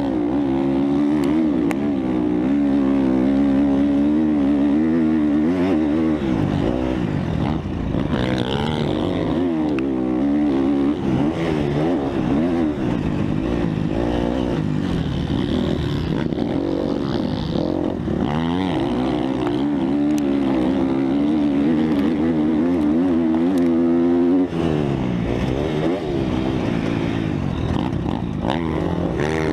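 Motocross bike engine at racing pace, heard from the rider's onboard camera. Its pitch rises and falls constantly as the throttle is worked through the track's corners and straights, with a brief drop in loudness about three-quarters of the way through.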